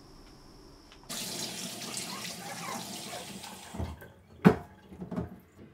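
Kitchen sink tap running, water splashing into the sink for about three seconds before being shut off. Then a sharp knock, the loudest sound, and a couple of lighter clunks.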